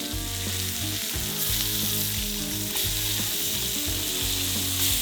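Mince burger patties frying with a steady sizzle.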